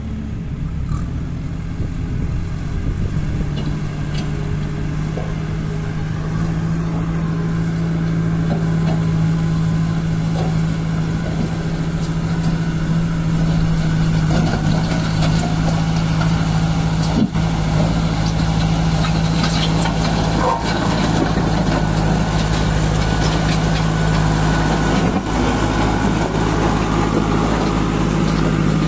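Kirloskar diesel engine of a JCB 2DX backhoe loader running steadily, getting a little louder over the first several seconds, with a few brief knocks.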